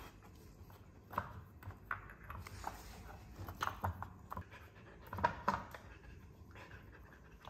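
Samoyed sniffing and nosing at a wooden puzzle toy, with light, irregular clicks and knocks as its wooden pegs are pushed and lifted; faint.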